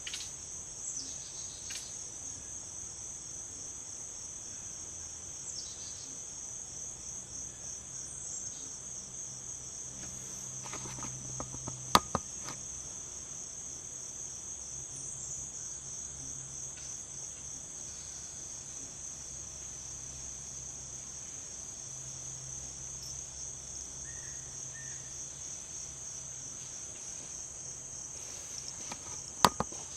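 Insects trilling outdoors, a steady high-pitched chorus of fast, even pulses, with a few sharp clicks about twelve seconds in and again near the end.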